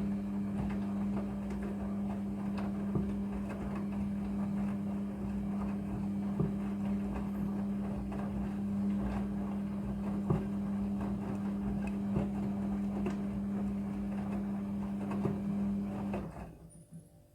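Steady machine hum with scattered light clicks and rattles, cutting off abruptly about sixteen seconds in.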